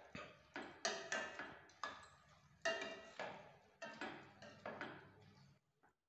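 Steel ladle scraping and clinking against a stainless steel pan while stirring paneer masala: about a dozen irregular knocks, each with a short metallic ring, stopping just before the end.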